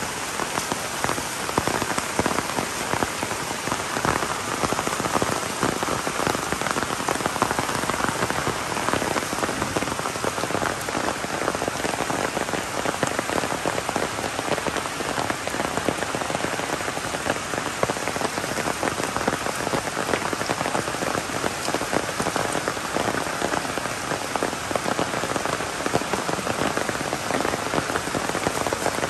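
Heavy rain falling steadily, a dense even hiss of drops hitting the ground and surfaces.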